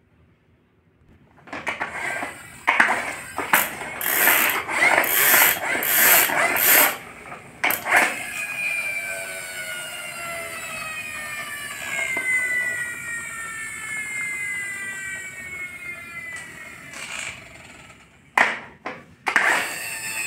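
Plastic friction-powered toy race car: its wheels are rubbed hard back and forth on the floor with a grinding ratchet noise, winding up the flywheel, then with the car held up the wheels spin freely with a whine that slowly falls in pitch over about ten seconds. Near the end it is rubbed on the floor again in a few short strokes.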